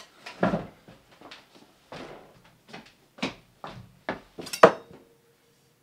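A run of about ten knocks and thuds from someone moving about in a hurry. The loudest comes near the end and is followed by a short ringing tone.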